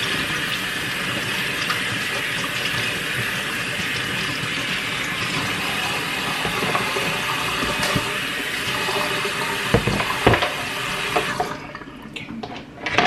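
Kitchen tap running steadily into the sink, with a couple of knocks about ten seconds in; the water shuts off near the end.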